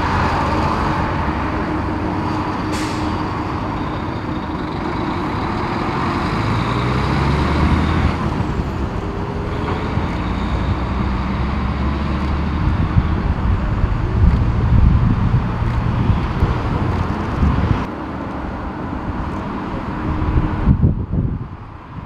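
Boeing 747-400 freighter's four jet engines running at taxi power: a steady rumble with a high whine. Gusty wind buffets the microphone in the second half.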